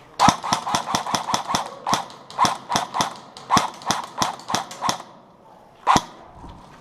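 Airsoft gun firing: a fast, uneven string of about twenty sharp shots over some five seconds, then one more shot about a second later.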